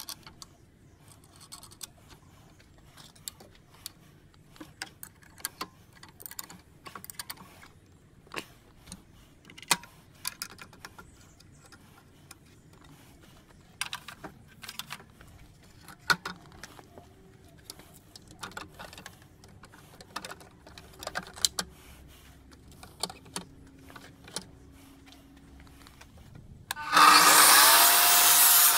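Scattered clicks, knocks and rattles of parts being handled and fitted on an IQ TS244 10-inch dry-cut tile saw. About 27 s in, the saw is switched on: its motor and built-in dust vacuum start suddenly with a loud rushing noise and a whine that rises briefly, then holds steady.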